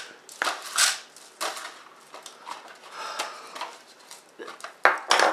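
Videotape being pulled out of a VHS cassette by hand in repeated tugs: a run of short, irregular bursts of noise from the tape and the cassette's plastic shell, the loudest near the end.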